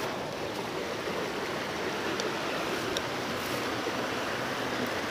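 Steady rush of flowing stream water, with a few faint ticks scattered through it.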